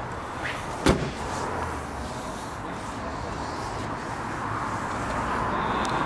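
A single sharp slam about a second in, the bonnet of a Jaguar F-Pace being shut, over steady background noise.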